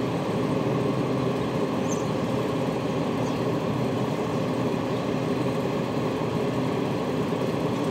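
Garbage truck engine idling steadily with an even, unchanging drone.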